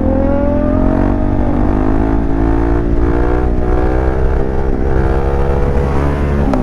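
A motorcycle engine runs steadily, its pitch falling slowly over the first few seconds and then levelling off.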